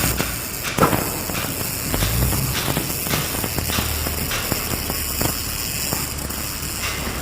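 A run of irregular sharp knocks and clatters over a steady low background.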